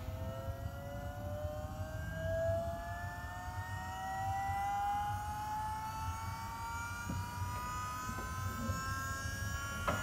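Electro-hydraulic power-steering pump from a 997 GT3 Cup running, its whine rising slowly and steadily in pitch over a low steady hum. There is a sharp click near the end.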